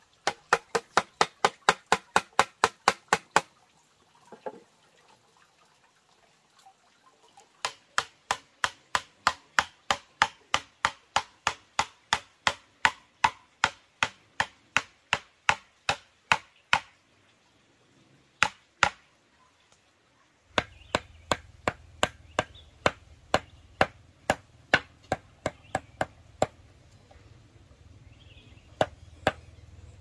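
Knife chopping with quick, evenly spaced strokes, about four to five a second, in runs broken by short pauses.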